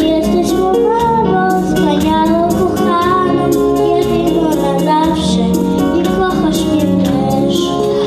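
A young girl singing a song solo into a microphone, over instrumental accompaniment with a steady beat.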